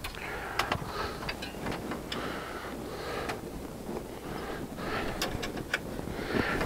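Hand ratchet clicking in short, irregular runs as a bolt in the engine bay is turned out, with a closer run of clicks about five seconds in.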